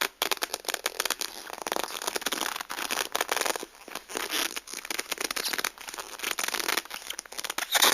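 Black leather glove rubbing and squeaking against shiny material: a dense crackling friction noise with many small ticks, coming in swells with a few brief pauses.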